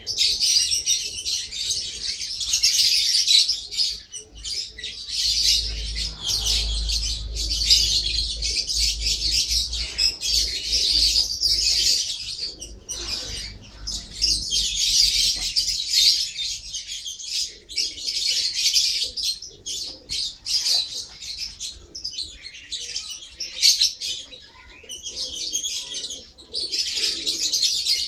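Lovebird chattering: a near-continuous stream of rapid, shrill chirps with short pauses.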